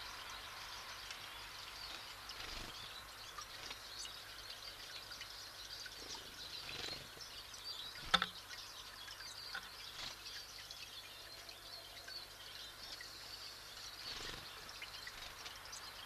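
Faint outdoor forest ambience: small songbirds chirping here and there over a steady hiss. A single sharp knock sounds about halfway through.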